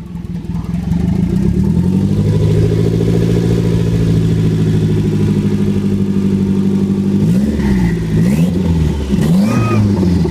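Saab 900 Turbo's turbocharged four-cylinder engine with a 3-inch exhaust revving up, holding at steady raised revs, then blipped up and down several times in quick succession near the end.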